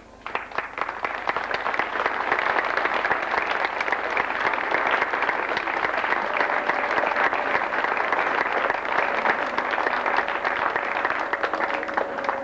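Large audience applauding, starting right away and going on steadily, thinning out near the end.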